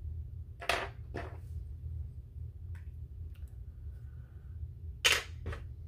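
Sharp clicks of a plastic ink-pad case and sponge applicators being handled and set down on a tabletop: a pair about a second in and a louder pair near the end, over a low steady hum.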